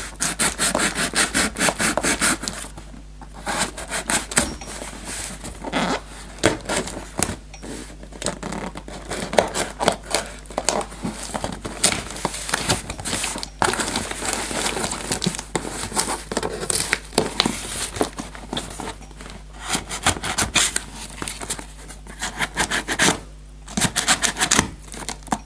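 A nail file scraping and sawing at a sealed smartphone box, many quick irregular rubbing and scratching strokes with brief pauses. The file makes poor headway at opening it.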